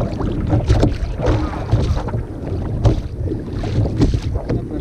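Wind buffeting the microphone in a low, uneven rumble, with water splashing and knocking irregularly against a kayak hull.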